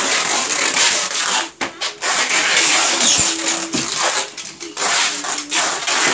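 Packing tape being pulled off its roll in long, loud, scratchy pulls, several in a row with short breaks between, sealing styrofoam shipping boxes.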